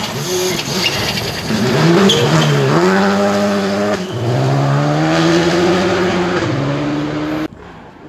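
Rally car's engine revving hard as the car passes on a gravel stage: the note climbs, dips briefly at a gear change, climbs again and holds high before easing off. The sound cuts off suddenly near the end.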